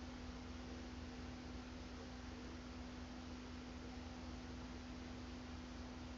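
Faint steady hum at one low pitch over an even background hiss, unchanging throughout: the recording's background noise, with no other sound.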